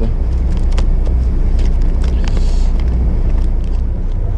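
A moored fishing boat's engine idling, a steady low hum, with a few light clicks over it.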